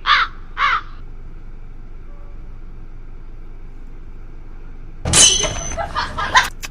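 A crow cawing twice in quick succession, harsh calls about half a second apart. About five seconds in comes a louder burst of mixed noise lasting about a second and a half.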